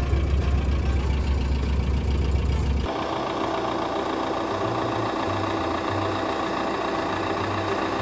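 Vehicle engine running, with a heavy low rumble for the first few seconds. About three seconds in, the sound cuts abruptly to a steadier engine hum with several held tones.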